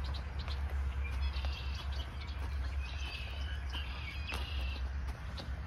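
Small birds chirping in short trills, three or four times, over the faint steps of a walking horse's hooves on a gravel track and a steady low rumble.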